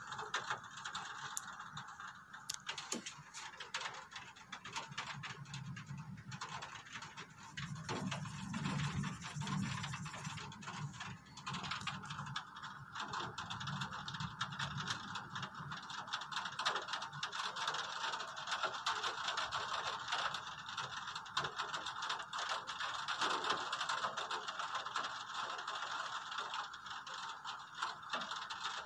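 Heavy rain falling during a thunderstorm: a steady hiss dense with fine ticking drops. A low rumble of thunder swells around eight to ten seconds in.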